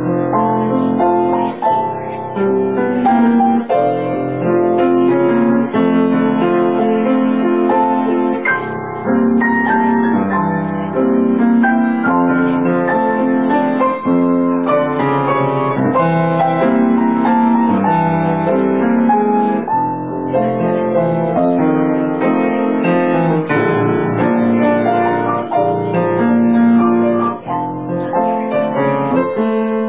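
Piano playing a continuous flowing piece of chords and melody.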